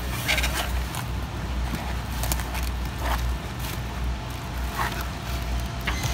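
A damaged cardboard box being pulled out of a wire cart and lifted: scattered rustles and scrapes of cardboard and packaging over a steady low rumble.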